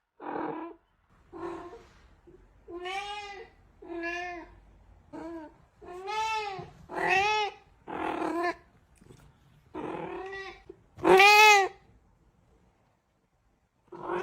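A cat meowing over and over, about ten separate meows each rising and falling in pitch, the loudest one near the end.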